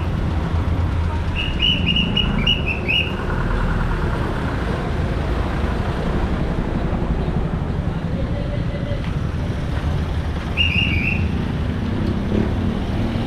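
Steady outdoor traffic rumble, with a small bird chirping in quick runs of short high notes, once about a second and a half in and again near the end.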